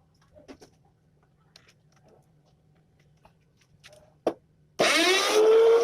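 Faint handling clicks, then a sharp click, and an electric trim router switched on. Its motor spins up with a whine that rises in pitch and levels off near the end.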